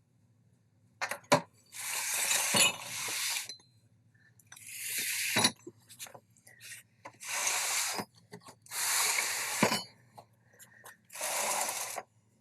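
Boxes and containers being shifted and slid about: a series of scraping slides, each about a second long, with several sharp knocks between them.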